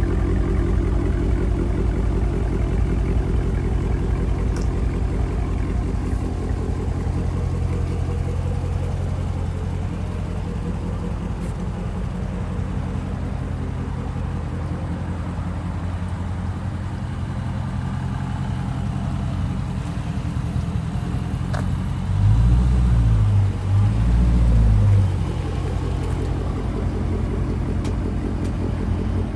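Dodge Charger Scat Pack's V8 engine running steadily with a low drone, revved up twice briefly about 22 to 25 seconds in.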